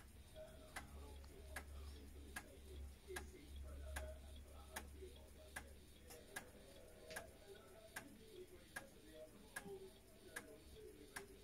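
Floppy disk drive formatting a disk: the read/write head steps slowly from track to track, one sharp click about every 0.8 seconds. A faint low hum runs underneath, strongest for the first seven seconds or so.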